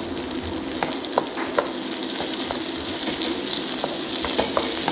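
Sliced onions, garlic and pork pieces sizzling in hot oil in a wok, with a steady hiss. A wooden spatula stirring them gives a few short scrapes and taps against the wok.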